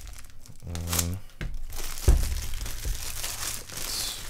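Clear plastic shrink-wrap being torn and pulled off a cardboard keyboard box, crinkling and tearing, with a dull thump about two seconds in.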